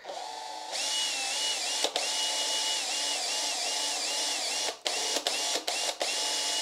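Cordless drill running as it bores into a fibreglass dash panel: a steady motor whine that sags and recovers in pitch as the bit bites, stopping briefly a handful of times.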